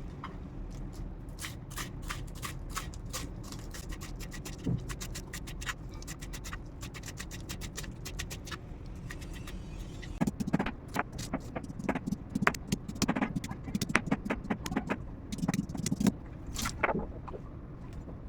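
Knife chopping fresh coriander on a cutting board: a run of quick, light taps, then heavier knocks from about ten seconds in.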